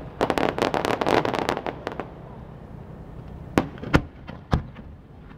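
Fireworks going off: a dense run of crackling pops for about the first two seconds, then three separate sharp bangs about a second apart near the end.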